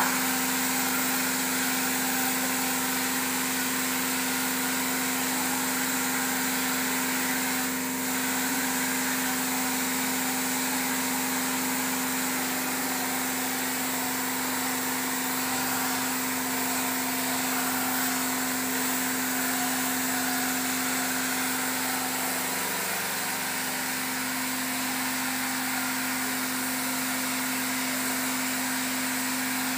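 Air compressor running steadily with a constant hum, under the hiss of air from a gravity-feed paint spray gun spraying a wall.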